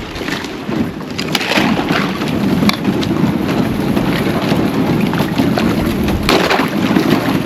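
Wading through swamp water: steady sloshing and splashing, with a few sharp knocks along the way.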